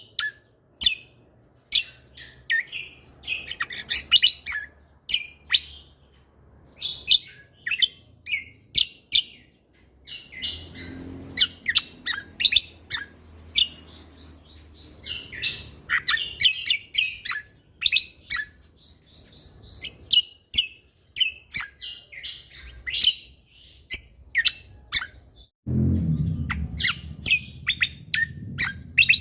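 A cucak kombo (kecial kombok) songbird singing nonstop in rapid clusters of sharp, high chirps and trills, with only short pauses between them. A low rumble sits underneath near the end.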